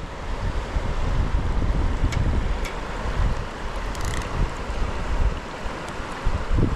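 Steady rush of river water with wind buffeting the microphone as a low rumble, and a few faint ticks about two and four seconds in.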